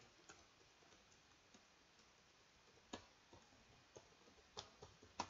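Near silence with a few faint, scattered clicks from working a computer, the clearest about three seconds in.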